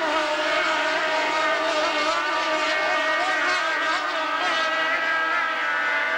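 Racing powerboat engines running at high revs on the course: a steady, loud drone of several overlapping high pitches that waver slightly.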